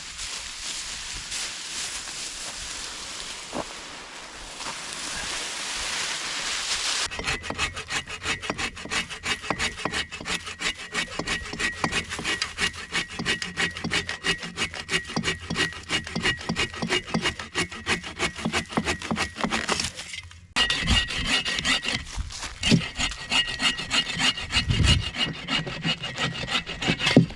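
A hand saw cutting through firewood in rapid, even back-and-forth strokes. There is a short pause about two-thirds of the way through before the sawing resumes. It is preceded by a few seconds of steady hiss.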